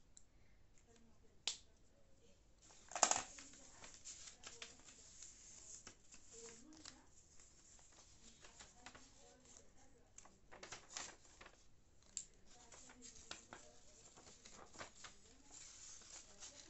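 Sheet of paper being handled and folded against a cutting mat: soft rustling and scraping, with sharp clicks about a second and a half in, about three seconds in (the loudest) and about twelve seconds in.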